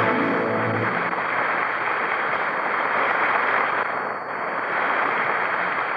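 Studio audience applauding, with the theme music dying away about a second in.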